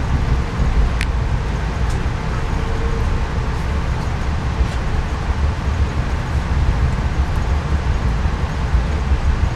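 Steady low rumble of a moving Amtrak passenger train heard from inside the car, with a few faint clicks.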